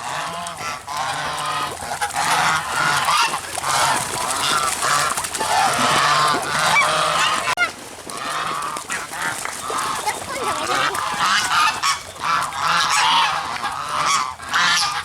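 A flock of domestic geese honking, with many loud calls overlapping almost without a break and a short lull a little past halfway.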